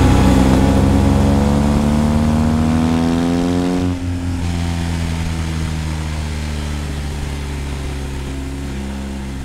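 Motorcycle engine accelerating, its pitch rising steadily for about four seconds, then suddenly dropping to a steadier, lower note that slowly fades.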